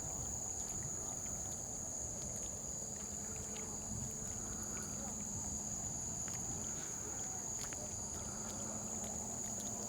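Night insects calling in a steady, unbroken high-pitched drone.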